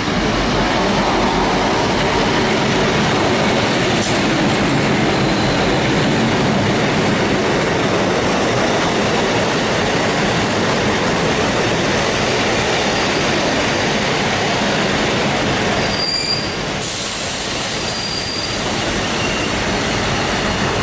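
A V/Line N-class diesel locomotive and its passenger carriages passing at speed: a steady, loud rumble of engine and steel wheels on rails that eases slightly near the end as the last carriages go by.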